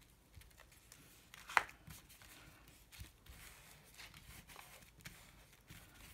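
Faint brushing and rustling of a flat paintbrush spreading Mod Podge glue over paper, with scattered light taps and one sharper tick about a second and a half in.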